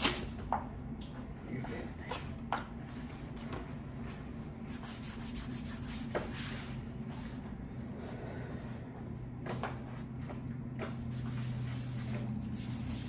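Quiet eating sounds: scattered soft clicks and rubbing noises from chewing and handling food, over a steady low hum.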